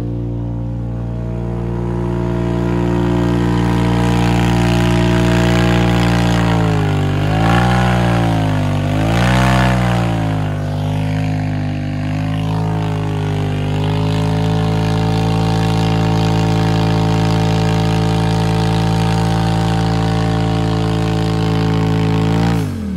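Polaris RZR Turbo engine held at high revs in a burnout, its rear tires spinning and smoking in place. The note holds steady, dips and recovers twice about a third of the way in, then drops sharply near the end as the throttle is let off, over the hiss of the spinning tires.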